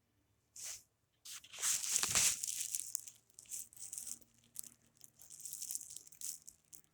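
A ball of Kinetic Sand crumbling and breaking apart: a grainy, hissing crackle in short bursts, loudest about two seconds in, then smaller crackles on and off.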